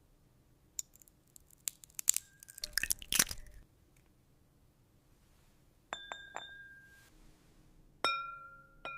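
Glass clinking: a cluster of sharp clicks and crackles over the first few seconds, then several separate glass taps that each ring on a clear, steady tone, the last two near the end. The sounds are synthetic glass-ASMR effects from an AI-generated video.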